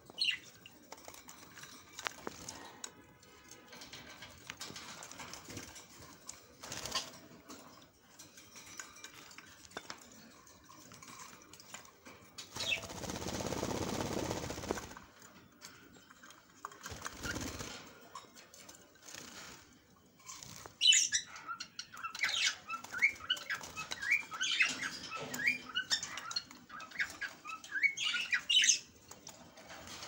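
Lovebirds bathing in a water bowl: splashing and flapping wet wings, with a long flurry of wing-beating and spray about halfway through. For the last several seconds there are rapid, high chirps, the loudest part.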